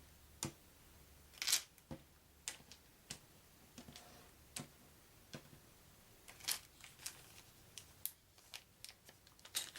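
Small painted wooden game tokens and plastic baggies being handled on a table: a dozen or so faint, scattered clicks and taps, with a few brief rustles.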